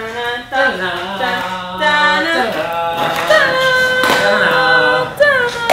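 Music with several voices singing long held notes, like a choir.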